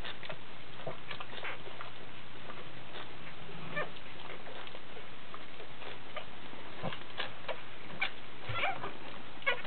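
Pug mother licking and cleaning her newborn puppies: soft wet licking and smacking clicks scattered through, more of them near the end, over a steady low hum and hiss.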